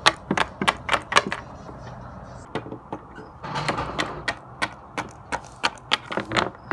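Plastic Littlest Pet Shop figurine tapped across a wooden tabletop by hand to make footsteps: a run of sharp clicks, about three a second, with a pause of over a second near the start.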